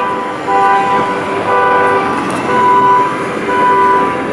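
Car alarm sounding a repeating horn-like tone, each blast held about a second with short breaks, the pitch pattern shifting from blast to blast.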